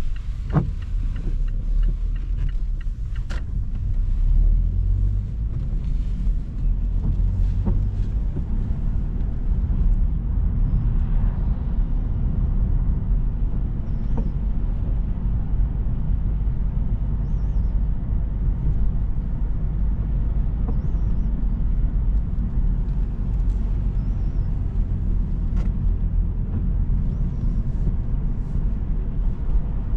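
Car driving, a steady low rumble of engine and road noise, with a few light knocks in the first several seconds.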